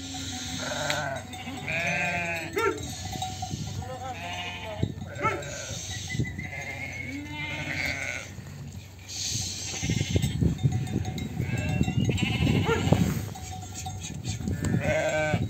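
A flock of ewes and lambs bleating, many overlapping calls, some high and thin, some deeper. About ten to thirteen seconds in, the shuffling of many hooves on dirt as the flock moves is the loudest sound.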